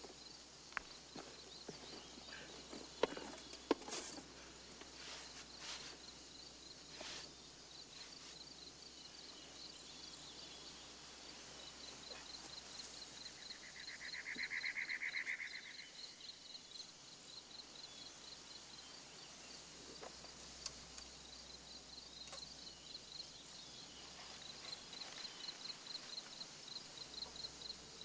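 Faint countryside ambience of insects chirping in a fast steady rhythm. A few sharp clicks and rustles of handling come in the first four seconds, and a buzz lasting about two seconds comes near the middle.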